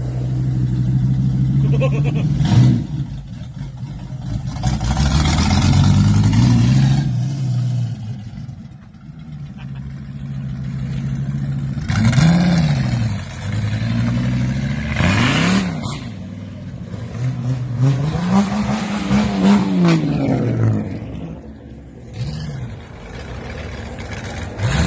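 V10 engine of a Capri breathing through open exhaust cutouts, idling and then revved in several throttle blips. The pitch rises and falls each time, and one longer rev comes near the end.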